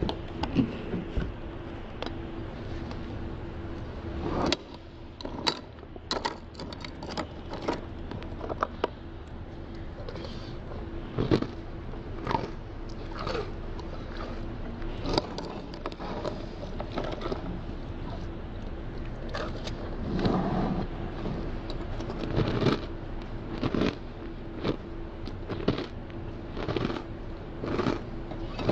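A person eating cereal from a plastic tub: an irregular run of crunches, chews and small plastic clicks, over a steady low hum.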